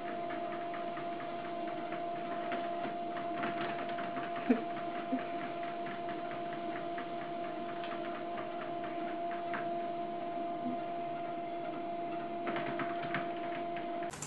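Electric treadmill running: a steady motor hum with a fast, even ticking from the moving belt, and one sharp knock about four and a half seconds in.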